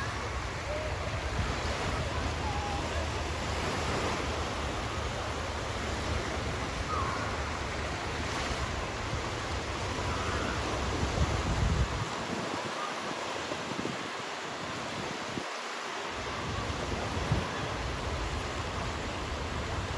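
Small waves lapping and breaking on a sandy shore, a steady wash of surf, with wind rumbling on the microphone that drops away for a few seconds past the middle.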